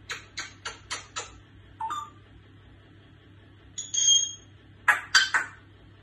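African grey parrot making a quick run of five clicks at about four a second, then a short chirp. A clear whistle follows about four seconds in, and three sharp clicks come near the end.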